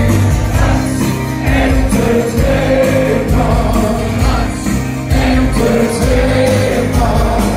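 Live rock band playing loudly, with electric and acoustic guitars, bass and drums under a sung vocal melody, recorded from within the audience.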